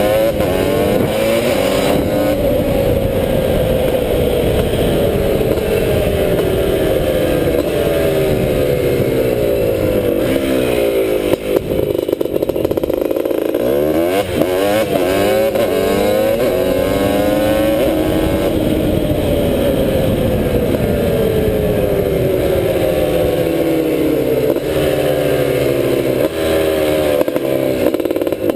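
Honda ATC250R three-wheeler's two-stroke single-cylinder engine running hard, its pitch sinking slowly for about ten seconds, dropping low, then climbing sharply and sinking again near the end.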